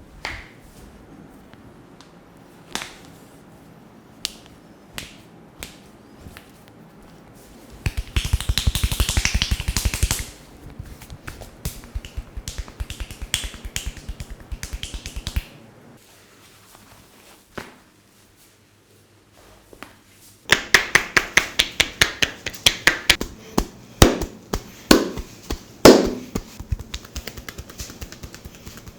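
Massage sounds: single sharp knuckle and joint cracks about a second apart, then bursts of quick rhythmic hand tapping, with a few louder cracks among the taps near the end.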